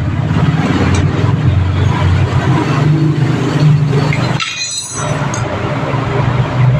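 Engine running steadily with an even low hum, briefly dropping out about four and a half seconds in.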